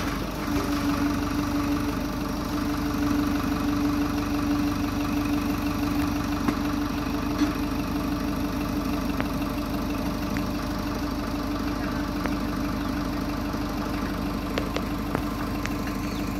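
Farmtrac 6060 tractor's diesel engine idling steadily, with the trolley's tipper raised. A steady hum sits on top of the engine for the first five seconds or so, and a few light knocks come through later.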